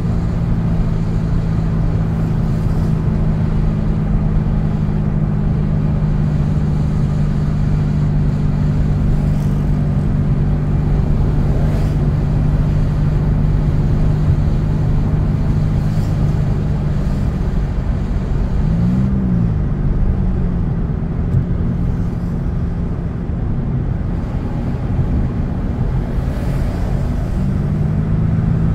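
Road vehicle engine running steadily under a low rumble while moving. About two-thirds of the way through its note briefly rises and falls, then settles lower, and near the end it climbs back up, as with a change of speed or gear.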